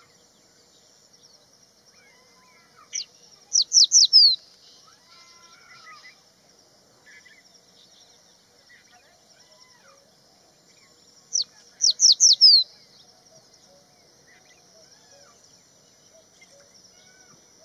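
Crested bunting singing two short song phrases about eight seconds apart, each a single high note followed by a quick run of four falling notes. A faint steady high-pitched buzz lies underneath throughout.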